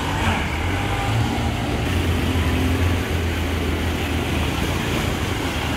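Steady rush of fast-flowing floodwater running down a street, with a continuous low rumble underneath.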